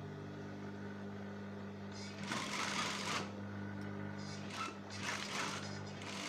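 Sewing machine stitching a seam to take in a trouser waistband, running in short bursts from about two seconds in, over a steady hum.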